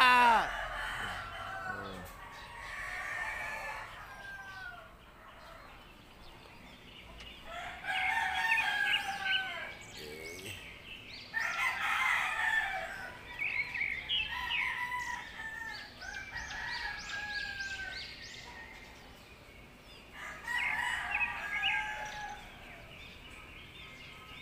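Roosters crowing several times in a row, each crow lasting one to two seconds.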